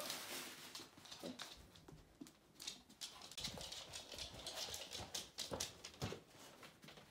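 A springer spaniel's claws clicking and tapping irregularly on a wooden floor as it walks about.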